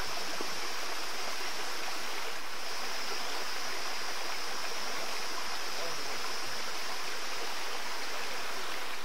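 Shallow forest stream running over rocks, a steady rushing water sound, with a steady high-pitched hum above it.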